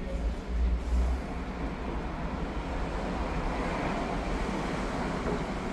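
Street traffic noise: a steady hum of passing vehicles, with a heavier low rumble in the first second.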